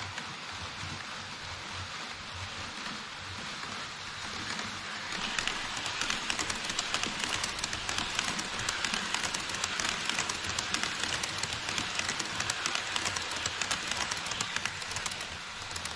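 HO-scale E5 series shinkansen model train running close past on KATO Unitrack: a dense, fast rattle of wheels clicking over the rail joints, starting about five seconds in and ending near the end. Before it arrives there is a softer, steady rushing hiss.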